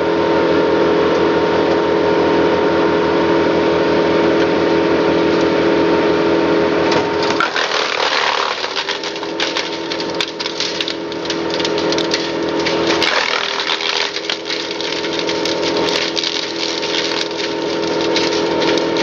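Timberwolf TW150 disc chipper running steadily, then from about seven seconds in chipping brash and limbs: a dense crackle and snapping of wood being cut, with the engine note dropping under the load and picking back up.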